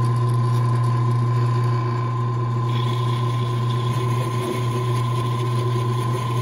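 Drill press motor running steadily at its lowest speed, spinning a steel tube against a hacksaw blade that slowly cuts a sleeve off it. It makes a steady low hum with a constant higher whine.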